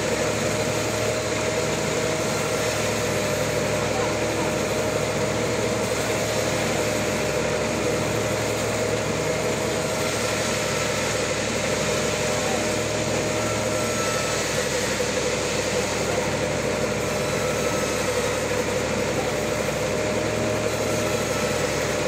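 Large band sawmill running steadily, its blade ripping lengthwise through a big trembesi (rain tree) log: a constant whine over the dense noise of the cut, holding even throughout.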